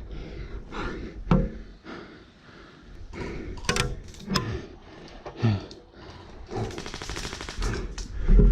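Airsoft gun firing a rapid full-auto burst of about a second near the end, among scattered sharp clicks and knocks earlier on.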